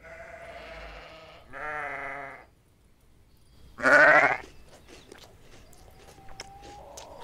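Sheep bleating three times, each call wavering, the third near four seconds in the loudest and rising in pitch. Faint scattered clicks follow.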